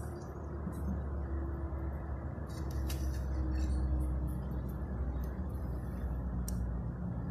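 A steady low rumble with a few faint light clicks from a piston and a steel feeler gauge being handled, about three seconds in and again near the end.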